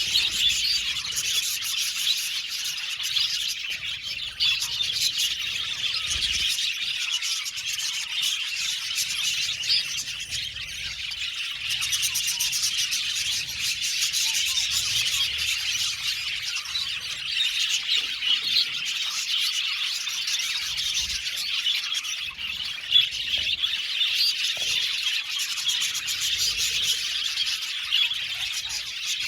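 A colony of budgerigars chattering and chirping together: a dense, continuous warble of many overlapping high chirps and squeaks.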